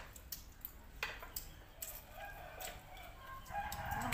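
A rooster crowing once through the second half. Spoons clink against plates and bowls throughout.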